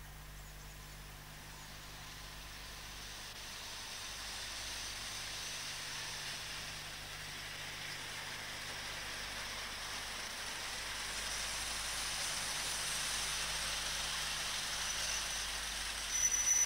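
First-generation diesel multiple unit approaching and drawing past, its rushing rolling noise growing steadily louder. Near the end a high squeal and uneven clatter set in as it comes alongside.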